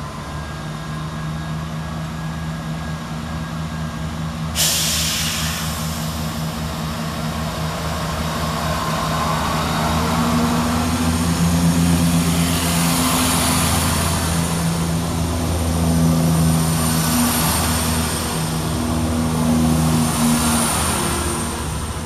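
Chiltern Railways Class 168 diesel multiple unit pulling out of the station, its underfloor diesel engines running under load as the coaches pass. The noise jumps suddenly about four and a half seconds in, and the engine note then swells and eases several times as each powered car goes by.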